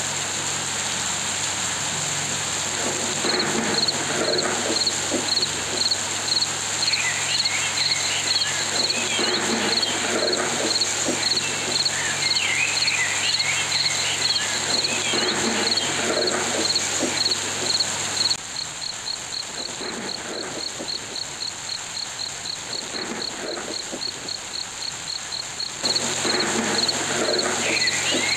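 Looped cricket ambient sound effect: a steady, regular high chirping pulse that grows faster about two-thirds of the way through, with irregular higher chirps over a constant hiss and hum.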